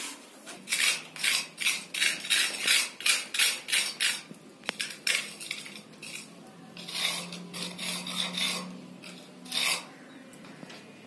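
Small steel trowel scraping plaster along a straightedge held to the wall, in quick strokes about three a second for the first four seconds or so, then a few longer scrapes after a pause.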